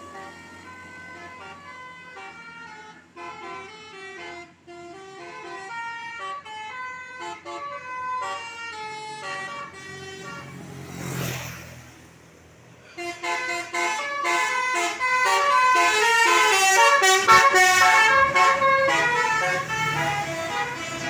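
Tour bus 'telolet' multi-tone horn playing a quick melody of short stepped notes, fairly soft at first. About halfway through there is a short rush of noise, then the horn melody comes back much louder for the last several seconds.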